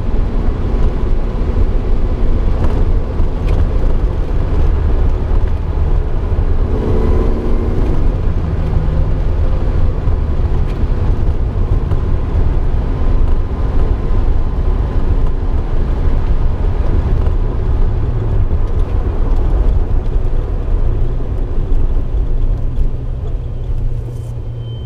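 1965 Jaguar E-Type's straight-six engine, heard from inside the cabin while driving, through a straight-through Bell sport muffler: a steady, low exhaust drone that eases off near the end.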